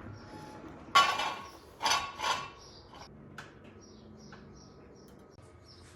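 Steel jack stands being set under the car: a sharp ringing metal clank about a second in, two more clanks close together near two seconds, then a few light ticks and knocks.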